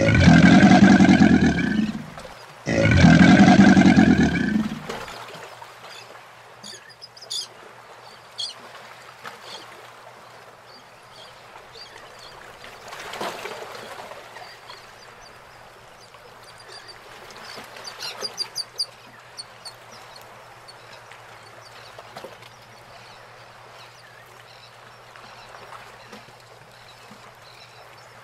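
Two loud, rough animal calls, each about two seconds long, fill the first five seconds. After them comes quiet outdoor background with a few faint high bird chirps.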